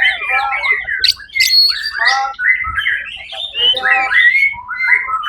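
White-rumped shama (murai batu) singing in full contest form: a loud, rapid run of varied whistled and sweeping phrases with brief gaps between them.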